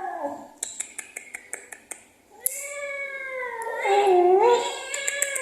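Cat yowling in protest at being groomed. A short call trails off at the start, then a run of quick sharp clicks, then one long drawn-out wail that rises and wavers and is loudest about four seconds in.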